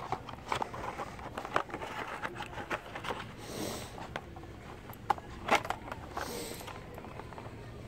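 Handling noise from a phone being moved about quickly: a run of clicks, knocks and scrapes, loudest about five seconds in, with two short breathy hisses.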